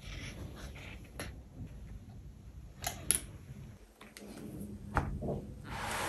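Hands handling a thick cardboard board book: a few sharp clicks and taps of the board spread through, then a short rustling swish near the end as the cover is opened and laid flat.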